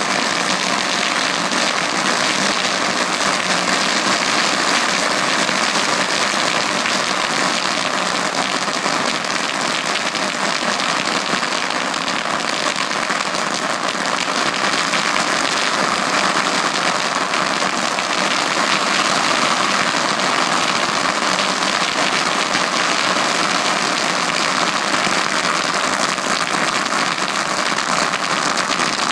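Ground fountain firework burning, giving off a steady, dense hissing crackle that does not let up.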